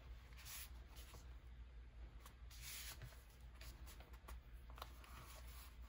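Faint papery rustling of hands smoothing and pressing a glued paper piece flat onto a journal page, in a few soft strokes with the odd light click.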